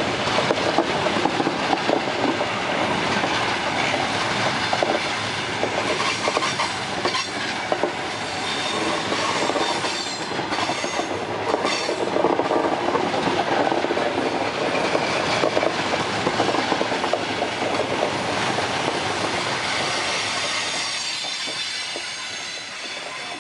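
Russian Railways passenger coaches rolling past at close range: a steady wheel-on-rail rumble with repeated clatter over the rail joints. It fades near the end as the last coach goes by.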